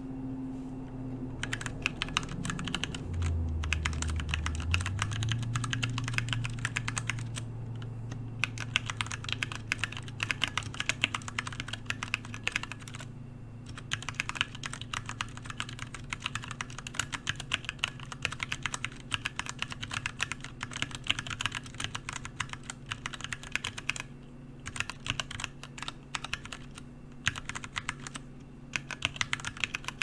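Typing on a Qisan Magicforce Smart 49-key 40% mechanical keyboard with Gateron Brown tactile switches and ABS keycaps: a dense stream of key clicks, broken by a few short pauses, over a low steady hum.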